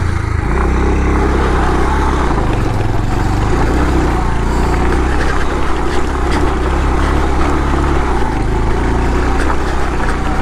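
Bajaj Pulsar 150's single-cylinder four-stroke engine running steadily under load as the motorcycle climbs a rough off-road track.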